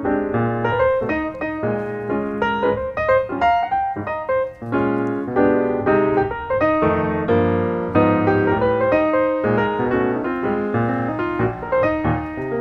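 Background piano music: a light piano tune played at a lively pace, with a steady bass line under the melody.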